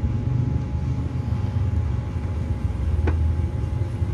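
Steady low rumble with a faint hum, and a single light click about three seconds in.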